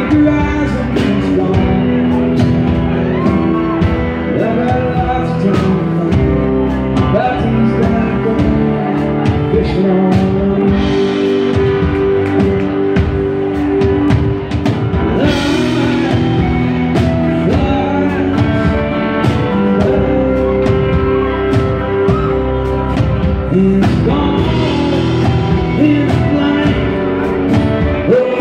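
Male voice singing live, accompanied by his own strummed acoustic guitar.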